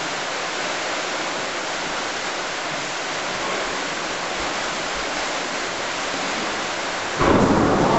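Steady rushing wash of river water, an even, unbroken noise. About seven seconds in, a louder sound breaks in over it.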